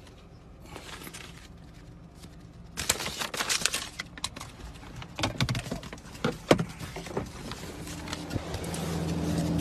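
Rustling and crackling of paper and phone being handled inside a car, with a few sharp knocks, starting about three seconds in. Near the end the car's engine hum builds steadily.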